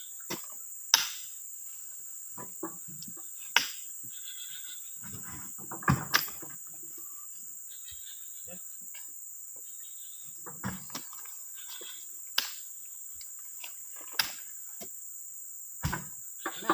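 Heavy oil palm fruit bunches thudding and knocking as they are heaved onto a dump truck's steel bed and dropped on the ground, about ten sharp irregular impacts a second or a few apart. Under them runs a steady high insect drone.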